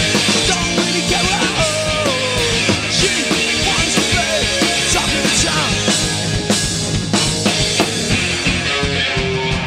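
Live rock band playing: electric guitar and bass over a drum kit, an instrumental stretch with no vocals, with a guitar line bending up and down in pitch in the first few seconds.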